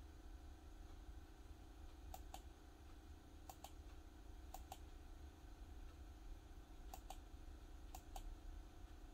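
Faint computer mouse clicks, each a quick press-and-release pair, five of them spread irregularly over a low steady hum.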